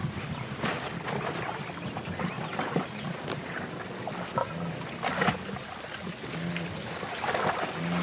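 A lioness wrestling a wildebeest down at the water's edge: splashing, thuds and scuffling, with a few short low growls in the second half.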